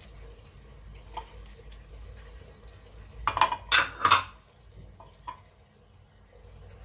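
A kitchen utensil clinking and scraping against a cooking pot: a few light clinks, then a louder clatter lasting about a second, around three to four seconds in.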